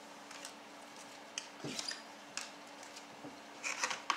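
Trading cards and a card packet being handled on a tabletop: scattered light taps, clicks and crinkly rustles, busiest just before the end.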